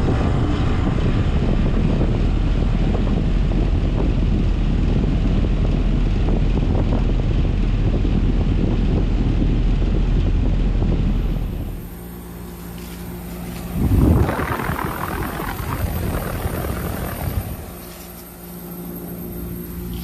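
2005 Carrier TECH2000 Performance Series heat pump outdoor unit running in heat mode: a loud steady rush of the top-discharge fan for about the first eleven seconds, then a quieter steady low hum, with a louder rush swelling up around fourteen seconds in for a few seconds.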